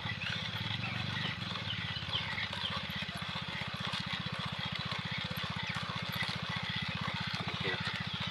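Outdoor ambience with many scattered short bird chirps over a low, rapidly pulsing hum.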